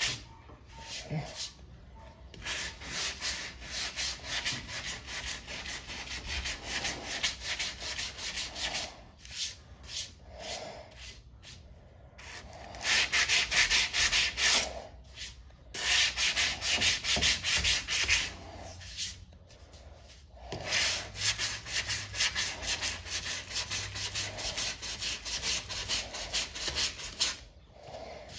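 Sandpaper on a hand sanding block rubbed quickly back and forth over body filler on a Chevy C10 cab seam, a dry rasping in runs of several seconds broken by a few short pauses.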